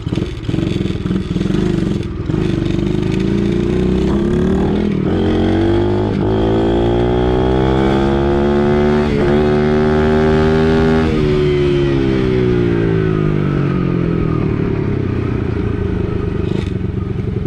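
A gas dirt bike engine runs loud under the rider. Its revs climb from about four seconds in, hold high for a few seconds, then sink steadily after about eleven seconds as the bike slows in third gear, too high a gear for that speed, which makes it bog toward a stall.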